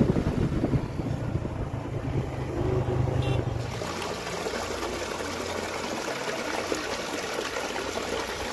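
A motorcycle engine running low for about the first four seconds, then falling away, leaving the steady rush of running water.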